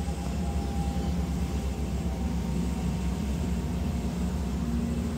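Steady low drone of ship engines, with several steady low tones and a few faint higher tones over it.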